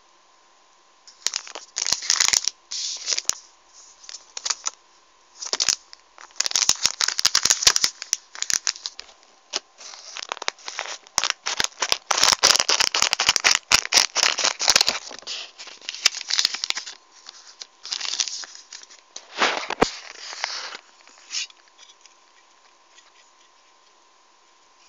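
Plastic packaging crinkling and crackling in the hands as it is opened, in irregular bursts with sharp clicks, stopping a few seconds before the end.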